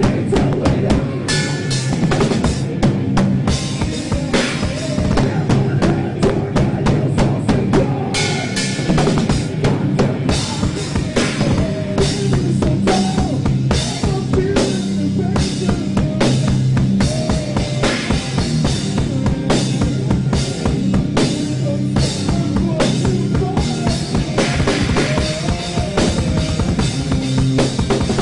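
Drum kit played hard at a fast tempo, with kick drum, snare and cymbals struck in a dense, unbroken rhythm. Steady held notes from the rest of the band run underneath.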